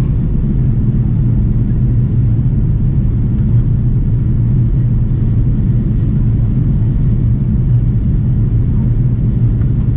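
Steady low roar of an Airbus airliner heard from inside the passenger cabin in flight: engine and airflow noise.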